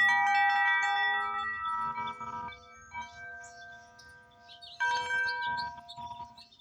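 Grace Note wind chime rung by its striker in the wind. A cluster of several clear tones sounds at the start and fades over a couple of seconds, then comes a lighter strike and a second cluster about five seconds in.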